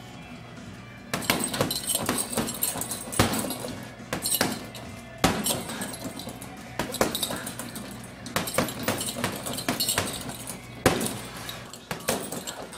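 Boxing-gloved punches striking a hanging heavy bag in irregular combinations, each hit a sharp slap-thud, with the bag's suspension chains clinking.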